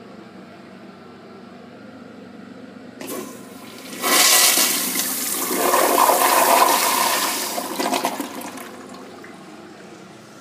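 Crane Hymount toilet flushing through its flushometer valve. A short hiss about three seconds in, then a loud rush of water through the bowl for about four seconds, which dies away.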